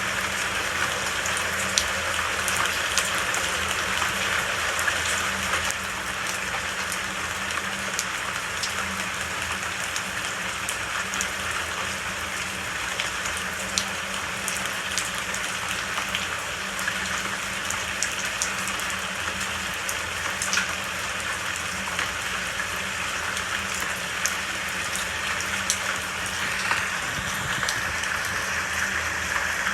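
Steady rain falling on foliage, with a dense hiss and scattered individual drops ticking throughout.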